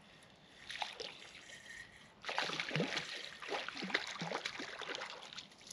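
Small queenfish splashing and thrashing at the water's surface as it is reeled in to the shore, with a few light splashes at first and rapid, continuous splashing from about two seconds in.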